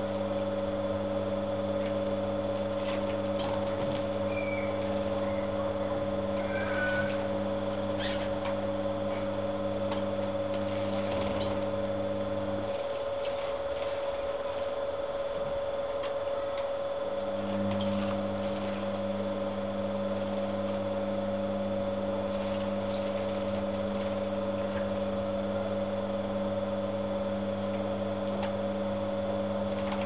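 Steady electric hum of a small pump, which cuts out about thirteen seconds in and starts again some four seconds later. A few faint high chirps come about four to seven seconds in.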